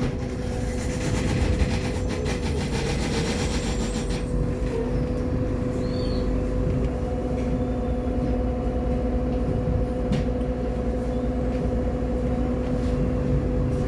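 Irisbus Agora L city bus running, heard from inside the cabin: a steady engine and drivetrain hum over low rumble, with a higher whine joining about halfway through.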